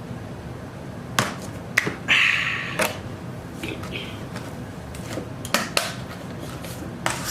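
Eating noises at a meal: several sharp clicks and taps, with a short crunchy rustle just after two seconds in.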